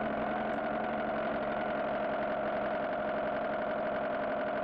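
Recorded car engine idling steadily, an engine sound laid over a toy car.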